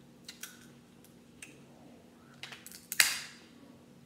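Crab leg shell being cracked and snapped apart by hand: several small clicks, then a sharp, loud crack about three seconds in.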